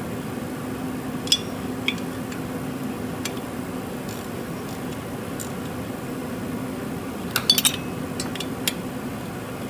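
Hand tools on the motorcycle engine's cylinder head bolts: a few scattered light metallic clicks and clinks, with a quick cluster about seven and a half seconds in, over a steady low hum.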